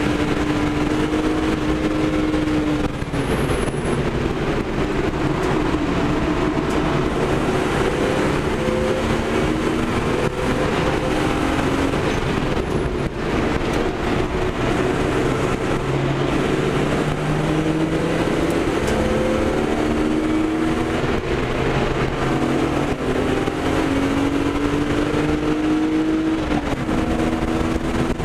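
BMW 325i straight-six engine heard from inside the cabin under hard driving, its pitch climbing through the revs and dropping sharply at each upshift, about three seconds in and again near the end, over steady road and wind noise.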